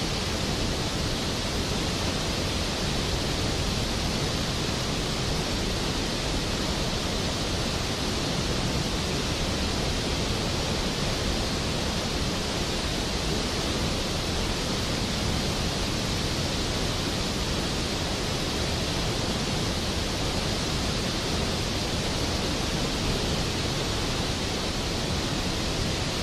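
Steady rush of white water from the Little Qualicum River's rapids and waterfall.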